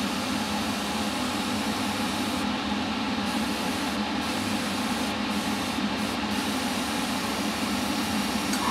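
Steady whoosh of a spray booth extractor fan running, with the hiss of a Harder & Steenbeck Infinity airbrush spraying paint; the hiss thins out briefly a few times as the trigger is eased off.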